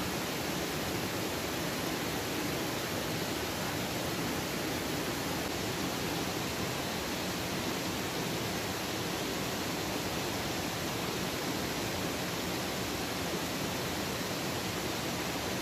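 A waterfall's steady, even rush of falling water, unbroken throughout.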